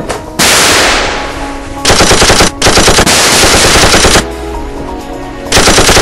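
Machine-gun fire: a sudden loud blast that fades away over about a second and a half, then three bursts of rapid automatic fire, the longest about a second and a half. Background music plays underneath.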